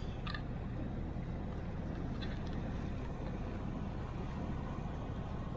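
A car driving slowly through deep floodwater, heard from inside the cabin as a steady low rumble, with a couple of faint clicks near the start and about two seconds in.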